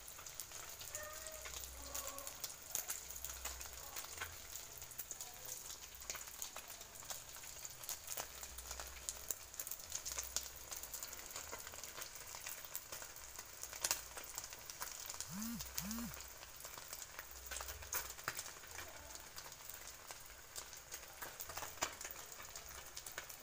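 Beaten egg frying in hot oil in a wok: a steady sizzle with many small crackling pops. Two brief low chirps come a little past halfway.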